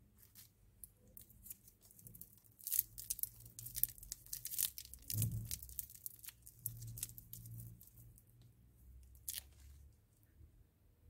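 A foil lollipop wrapper being torn and crinkled open by hand: a dense run of sharp crackles, thickest in the first half, thinning out, with one last loud crackle near the end.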